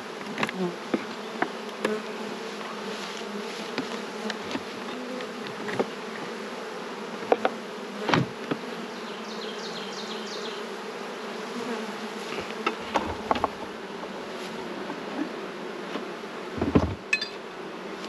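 Swarm of honeybees humming steadily around an opened hive. A few sharp knocks and clicks come from the wooden hive boxes and frames being handled, the loudest about 8 seconds in and near the end.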